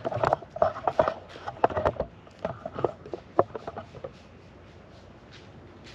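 A run of handling clicks, taps and knocks as a camera is adjusted on its handlebar mount, lasting about four seconds and then giving way to faint background.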